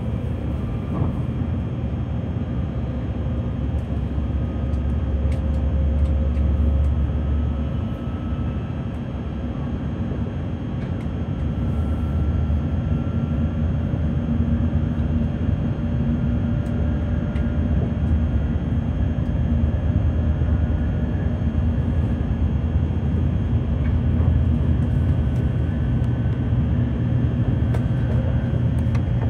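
Steady running noise inside a Sanyo Shinkansen bullet train car at speed: a low rumble with a faint whine over it.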